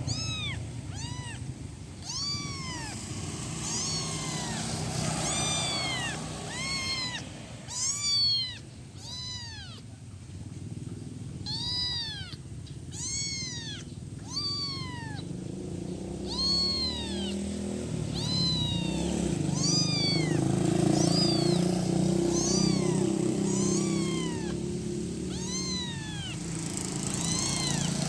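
A week-old kitten mewing over and over for its mother: short, high-pitched calls that rise and fall in pitch, about one a second. A low rumble joins in the background in the second half.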